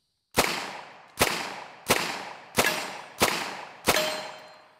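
Unsuppressed RPB MAC-10 submachine gun fired in semi-auto: six single shots a little under a second apart, each loud crack trailing off in an echo.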